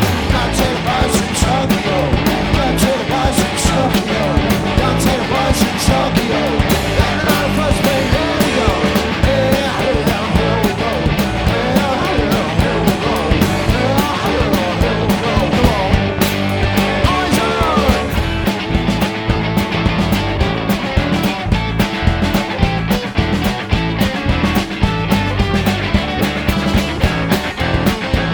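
A rock band playing loud, punk-style rock music live, with a steady drum beat under the guitars.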